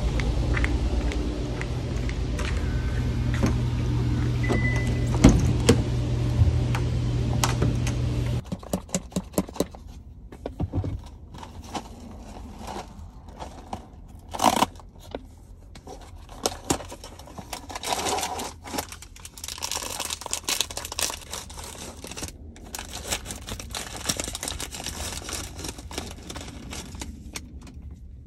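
A steady low rumble with scattered clicks for the first eight seconds, then it stops suddenly and a snack box and its plastic wrapping and tray are torn open and handled, a run of sharp crinkles, rustles and clicks.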